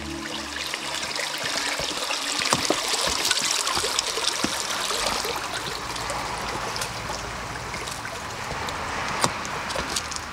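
Water trickling and splashing over rocks in a small stream, with a few sharp clicks or knocks scattered through it, the loudest about nine seconds in.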